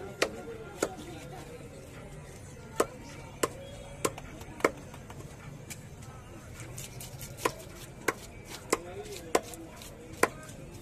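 A large knife chops through a catla fish on a cutting block. There are about eleven sharp chops in irregular groups, with short pauses between the groups.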